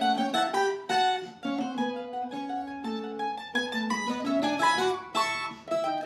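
Colombian bandola and tiple duet playing a bambuco, a quick run of plucked notes from both instruments.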